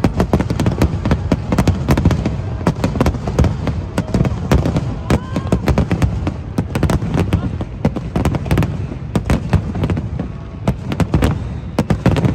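Fireworks display going off: a fast, uneven run of sharp bangs, several a second and often overlapping, over a continuous low rumble, with people's voices underneath.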